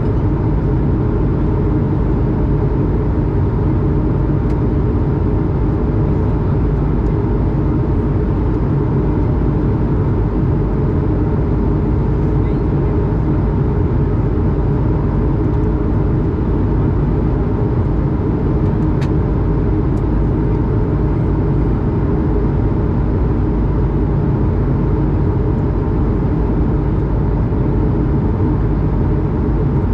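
Steady cabin noise of an Airbus A220 in cruise, heard from a window seat beside the engine: a constant low drone of airflow and its Pratt & Whitney PW1500G geared turbofan, with a faint steady hum on top.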